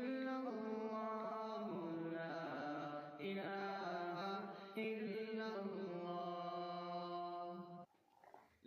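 Slow vocal chanting: one voice holding long melodic notes that glide from pitch to pitch, cutting out briefly near the end.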